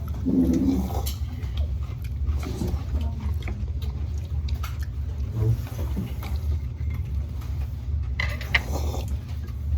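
Eating sounds: scattered small clicks and mouth noises from chewing noodles and dumplings, over a steady low rumble.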